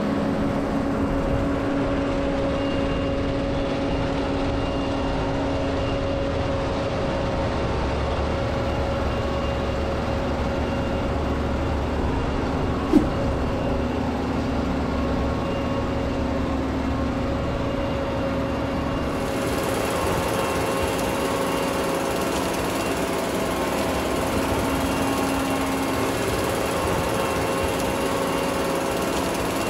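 Self-propelled cucumber harvester's engine running steadily, a constant machine hum with a few steady tones. A single sharp click about 13 seconds in, and more hiss after about 19 seconds.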